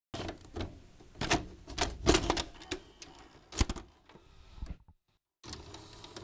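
VHS cassette pushed into a Philco VCR, the machine clicking and clunking several times as it loads the tape. After a brief break there is fainter rustling as popcorn is handled.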